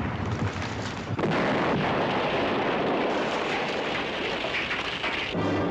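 Mortar shells exploding: sharp cracks, then about a second in a heavy blast that runs on as a long, dense rumble, with debris and dust falling like rain. It cuts off near the end as music comes in.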